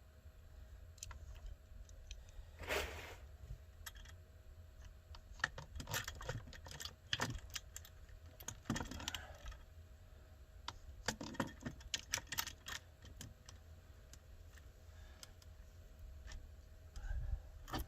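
Small metal parts and tools clicking and clinking irregularly as chainsaw components are handled and fitted by hand, with a brief rustle about three seconds in.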